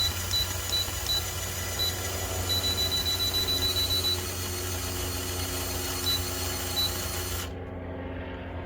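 Small RC crawler's electric motor and drivetrain whining steadily at full throttle with its wheels off the ground. The radio transmitter beeps short beeps as the throttle-trim button is pressed, then gives one long tone about two and a half seconds in, which signals the trim has reached its maximum. The high part of the whine cuts off near the end as the throttle is let go.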